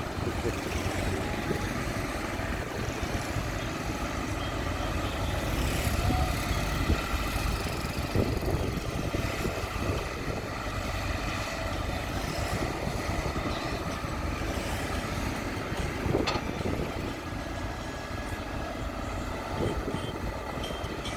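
Diesel engine of heavy earthmoving machinery running steadily, with a few sharp knocks.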